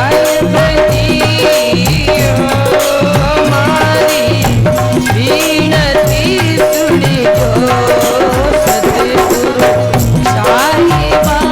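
Rajasthani folk devotional music: a wavering instrumental melody over a steady held drone note and a regular drum and rattle beat.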